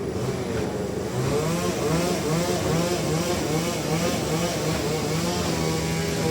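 Sawmill saw and its engine running while cutting a large trembesi (rain tree) log. The pitch wavers up and down a couple of times a second as the load on the saw changes.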